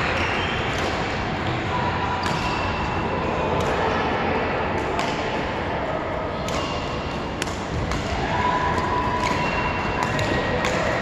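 Badminton rally: racket strings hitting a shuttlecock back and forth, sharp pings roughly every one to two seconds, about nine in all, over a steady background hum of the hall.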